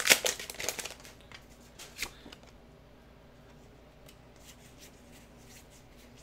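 Foil wrapper of a Pokémon card booster pack crinkling for about the first second, then soft flicks and slides of trading cards being handled and sorted through.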